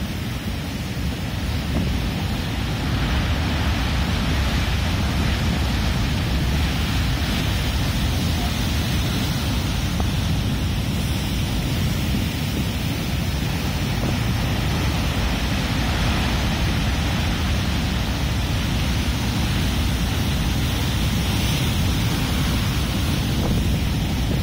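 Rough North Atlantic surf breaking and churning over shoreline rocks, a continuous rush of whitewater, with wind buffeting the microphone.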